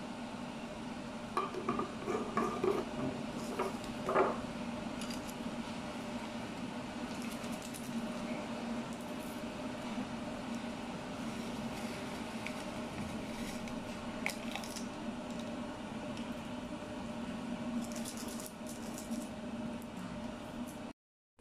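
Kitchenware clinking and knocking in short bursts for the first few seconds, over a steady low hum, with a few faint ticks later on.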